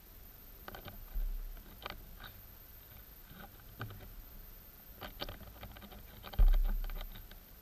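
Underwater sound picked up by a submerged camera: scattered faint clicks and ticks, with two low muffled thuds, a short one about a second in and a longer, louder one near the end.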